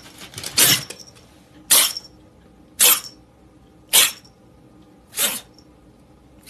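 Kitten sneezing five times in a row, about once a second.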